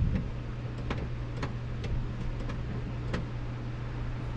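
A single thump, then several sharp clicks and taps spread over the next few seconds, from hands working at the car's doors and interior, over a steady low hum.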